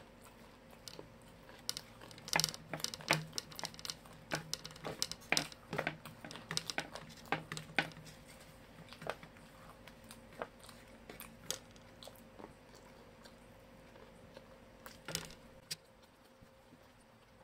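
Eating fried food by hand: a run of sharp crunchy clicks from chewing and from fingers picking food off a metal plate. The clicks are densest in the first half and grow sparse later, with a short cluster near the end.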